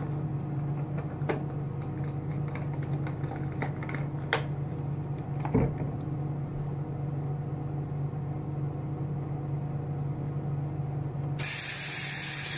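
A small bathroom's steady low hum, with a few light knocks and clicks from things being handled on the counter. Near the end comes a loud rush of hiss lasting about a second, which cuts off abruptly.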